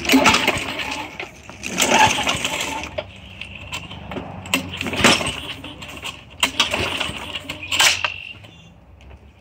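Recoil pull-starter of a Craftsman 4.5 hp Tecumseh lawn mower engine being yanked about five times, each pull a short rattling whir of the cranking engine. The engine does not catch: a hard-starting mower.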